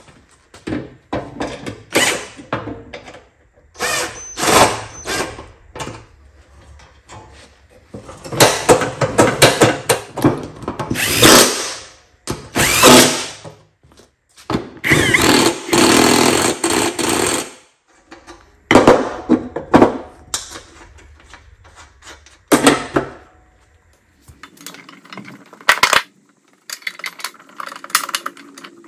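Cordless power driver running in bursts of one to three seconds while mower-deck parts are fastened, with short knocks and clatter of metal parts between the bursts.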